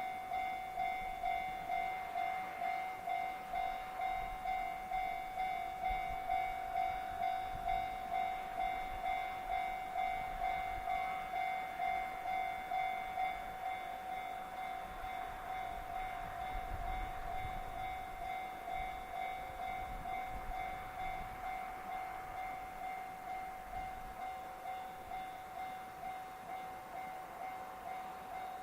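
Japanese railway level-crossing warning alarm ringing, an even, repeating two-tone ding about one and a half times a second, the signal that a train is approaching the crossing.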